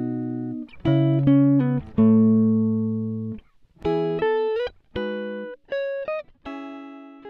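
Intro music on a guitar: single plucked notes and chords that ring out and fade, a few of them sliding up in pitch.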